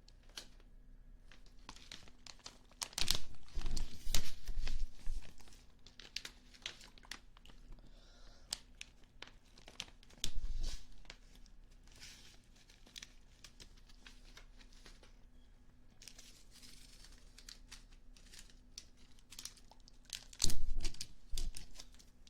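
Close-miked popping candy crackling and snapping in the mouth, with a stream of small sharp pops. A few louder crinkling, rustling bursts come about three to five seconds in, once around ten seconds and again near the end.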